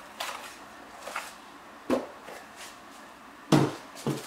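Cardboard box and its contents handled on a workbench: flaps opened and a plastic-bagged part pulled out, with light rustling and three dull knocks. The loudest knock comes about three and a half seconds in.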